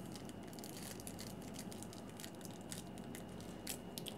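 A foil trading-card pack wrapper being torn open by hand, with scattered short crinkles and crackles; the sharpest crackle comes near the end.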